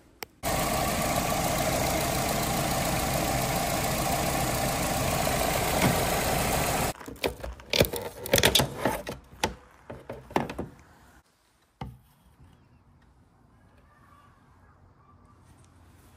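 A loud, steady rushing noise starts abruptly, runs for about six and a half seconds and cuts off suddenly. It is followed by a few seconds of irregular clicks and knocks as a car's side-mirror glass is handled and fitted into its housing.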